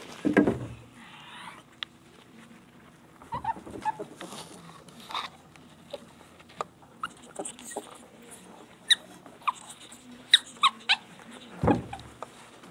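Two ferrets in rough play: a scattered run of short, high squeaks, the crying a ferret makes while being wrestled, over scuffling, with a heavy bump near the start and another near the end.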